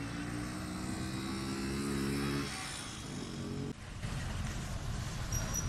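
A vehicle engine running steadily with a low, even hum. About four seconds in it cuts off abruptly and gives way to a steady low rushing rumble at the scene of a burning truck being hosed down.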